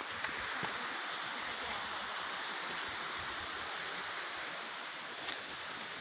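Steady rush of running water from a waterfall cascade, with one brief click about five seconds in.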